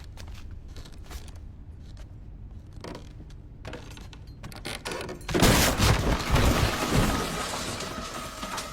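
A low, tense rumble with faint clicks, then about five seconds in a sudden loud boom and crash that lasts a couple of seconds and trails off crackling: a horror film's jump-scare sound effect.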